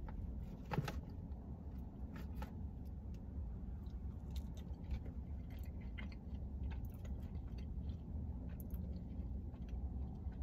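A man biting and chewing French fries that he finds cold and hard, with scattered short crunchy clicks and a sharper bite about a second in. A steady low hum sits underneath.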